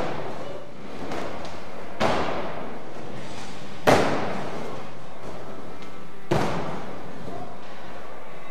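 Skateboard tricks on a wooden ramp floor: three sharp board slaps and landings about two seconds apart, the middle one the loudest, each ringing on in a large echoing hall, over the steady rolling noise of the wheels.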